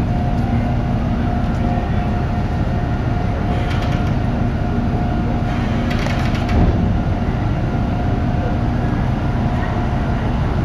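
Steady low mechanical hum with a couple of held tones from the docked Sado Kisen car ferry as its bow visor swings open, with a brief knock a little past halfway.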